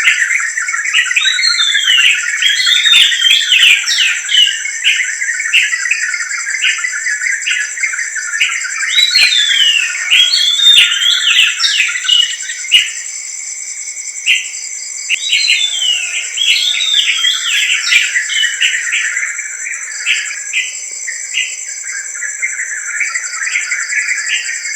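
Birds singing over a steady high drone of crickets, with a dense chirping underneath. One bird repeats the same short phrase of quick up-and-down notes three times, roughly every six to seven seconds.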